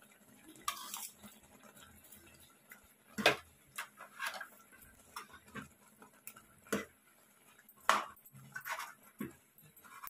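Steel spoon stirring jaggery into simmering semolina in a saucepan, scraping and clinking against the pan at irregular moments, with a few sharp knocks.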